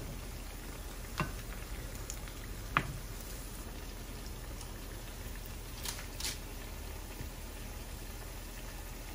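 Keto fries made of almond and coconut flour dough sizzling steadily in hot frying oil in a pan, with a few light clicks of a utensil against the pan about 1, 3 and 6 seconds in.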